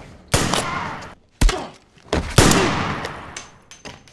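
Film gunfire from a Coharie Arms CA-415 rifle: four sharp shots over about two seconds, each trailing off in echo, the last the loudest with the longest tail.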